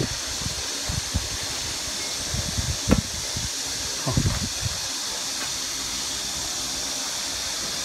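Steel clamp levers on a wire butt welding machine being worked by hand: a sharp metal knock about three seconds in and a few more clicks and thumps a second later, over a steady hiss.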